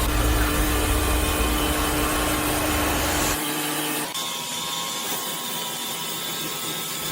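Industrial saw cutting through a large wooden slab, a steady machine noise with a held hum. About three and a half seconds in, the deep low end cuts off suddenly and the sound turns quieter and thinner.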